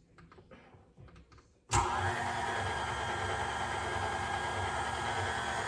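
Electric stand mixer switched on a little under two seconds in, its motor spinning up briefly and then running steadily at low speed with the dough hook turning. Before it starts, a few faint handling clicks.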